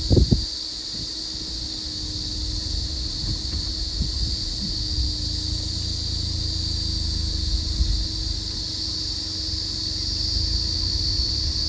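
Steady, high-pitched shrill of cicadas in chorus, over a low rumble. A couple of sharp knocks just after the start.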